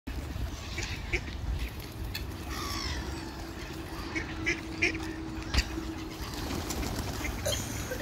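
Ducks quacking and other waterbirds calling in short scattered calls, with a few falling calls a few seconds in, over a steady low rumble. A single sharp click comes a little past halfway.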